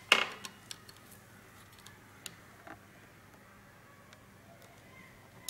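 Light clicks and taps of a plastic measuring ruler and a metal-tipped scriber handled against an acetate spectacle frame while the pad position is marked. The loudest click comes right at the start, a few small ticks follow within the first second and two more come about two and a half seconds in, over faint room tone.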